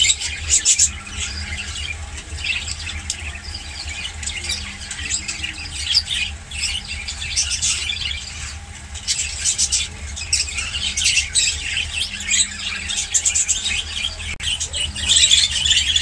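Many caged parrots chirping and squawking together, short high calls overlapping without a break, over a steady low hum.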